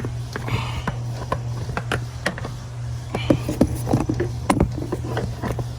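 Scattered sharp clicks and knocks of hands and hand tools working on a plastic ignition coil and its connector in the engine bay, over a steady low hum.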